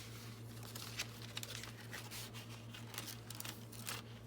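Paper rustling and crinkling in short irregular scrapes as journal pages and a paper card are handled, over a steady low hum.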